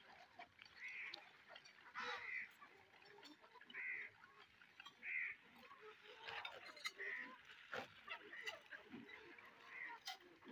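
Flock of desi chickens calling while they feed, with short high calls every second or two and a few sharp clicks.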